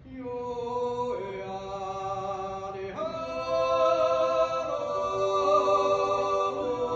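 Appenzell Zäuerli, a slow wordless yodel sung by a group of five men without instruments. A new phrase sets in at once, sung as long held chords, and the harmony shifts about a second in and again about three seconds in.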